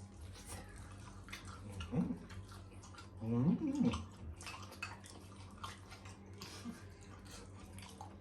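Close-up eating sounds: wet chewing and mouth smacking with small scattered clicks. In the middle comes a short wordless vocal sound, a hum of enjoyment that rises and falls in pitch.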